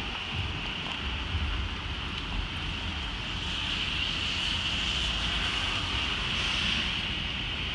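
Gusty storm wind buffeting the microphone with a low rumble, under a steady high-pitched hiss that swells slightly midway.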